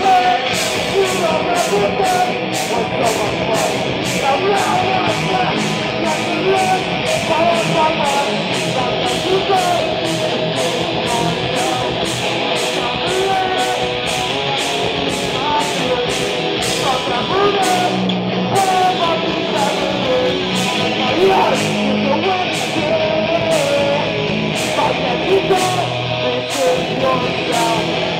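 Live rock band playing: electric guitars, bass guitar and drums, with a steady cymbal beat about twice a second.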